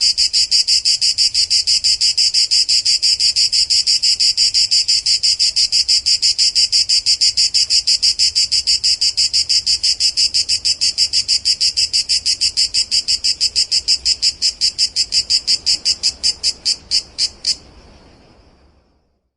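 Cicada singing: a loud, rapid train of buzzy pulses, about five a second, that spaces out near the end and stops about seventeen seconds in.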